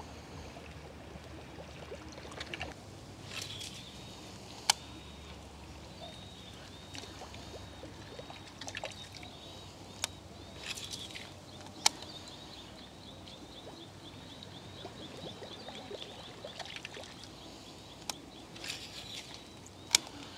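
Quiet waterside ambience: faint water lapping, about five sharp clicks scattered through it, and a faint high chirp repeated many times through the middle.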